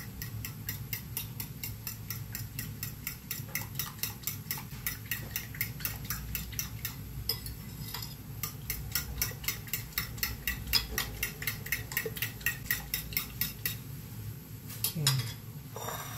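A metal fork beating eggs and water in a ceramic bowl, the tines clicking against the bowl about three to four times a second as the mixture is whisked for steamed egg. The beating stops about two seconds before the end, and one louder knock follows.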